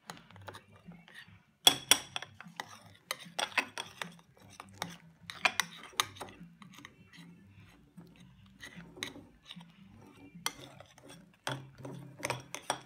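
A spoon stirring slime mixture in a bowl, with irregular clinks and knocks of the spoon against the bowl.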